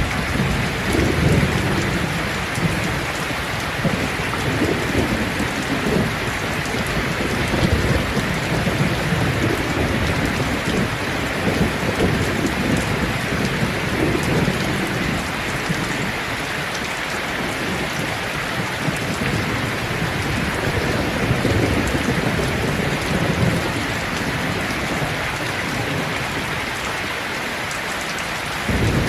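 Steady rain falling on leaves, a dense even patter, with a low rumble of thunder swelling and fading several times.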